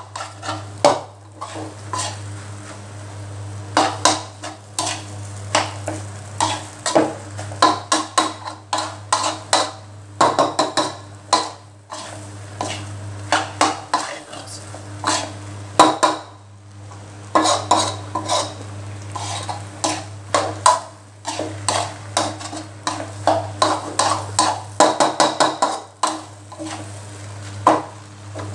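Metal spatula scraping and clanking against a wok as fried rice is tossed and pressed to break up the clumps. It comes in irregular runs of quick strokes with short pauses, over a steady low hum and a faint sizzle.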